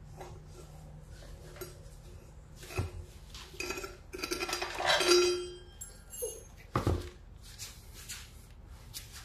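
Small metal parts and hand tools clinking and clattering as they are handled, with a longer scraping, ringing clatter about five seconds in and a sharp knock near seven seconds.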